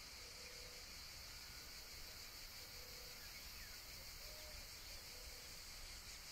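Faint outdoor ambience: a steady high-pitched hiss, with a few faint short low notes from far off every second or two.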